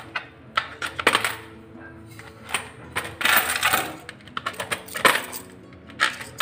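Metal coins dropped one at a time through a slit into a plastic soda bottle, clinking and rattling against the coins already inside. The clinks come irregularly, roughly one a second.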